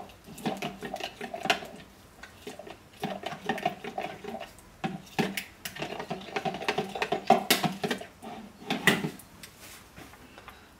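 Raw cold process soap batter being stirred by hand to mix in mica colour, the utensil knocking and scraping against the mixing container in quick, uneven runs of strokes. The stirring stops near the end.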